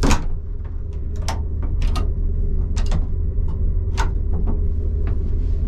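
Steady low rumble and hum of a Class 755 Stadler FLIRT train running, with a series of sharp clicks and knocks from a toilet door and its metal lever handle being worked, the loudest right at the start.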